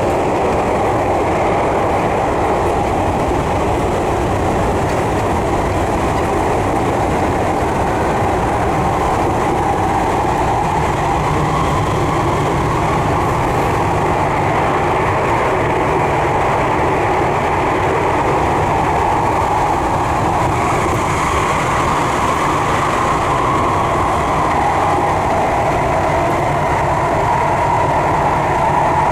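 Tokyu 3020 series commuter train running at steady speed, heard from inside the car: a continuous rumble of wheels on rail with a faint steady hum.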